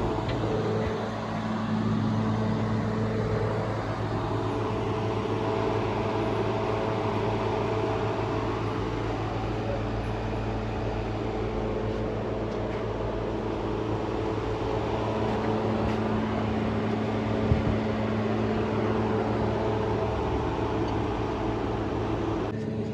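Steady mechanical hum with a constant low drone, running without change, and a single short knock about two-thirds of the way through.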